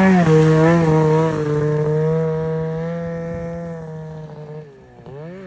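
Snowmobile engine held at high revs as the sled pulls away, its steady note fading with distance. Near the end it is revved up and down, farther off.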